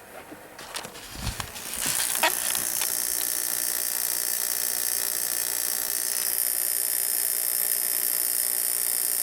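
Torpedo heater's igniter coil firing its spark plugs: a steady buzzing hiss of sparks arcing across the plug gaps, starting about two seconds in after a few clicks and knocks. The plugs are firing well.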